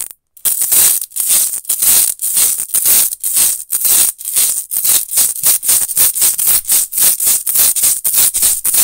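Adhesive tape pushed and dragged across a floor in quick repeated strokes, about four a second, each a hissy, rasping scrape.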